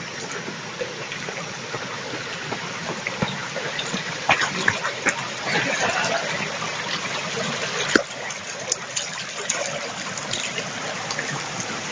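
A small forest stream running and trickling over rocks in a steady rush, with a few sharp clicks scattered through it, the sharpest about eight seconds in.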